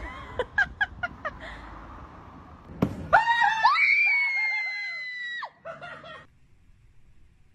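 A person screams: one loud, high, held scream of about two seconds that starts just after a thump about three seconds in and cuts off suddenly. Several sharp taps come before it, in the first second.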